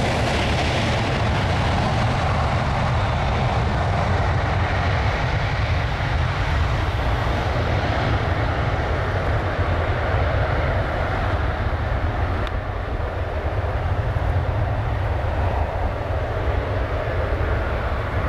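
Boeing 737-800's CFM56 jet engines running as the airliner rolls down a wet runway: a steady low rumble under a broad rushing roar, easing a little past the middle.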